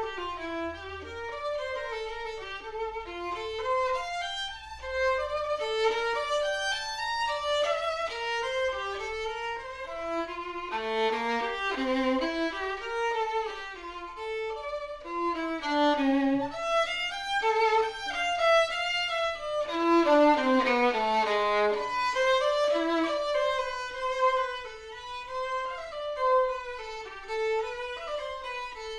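Background music: a violin playing a flowing melody, one note after another at a quick, even pace.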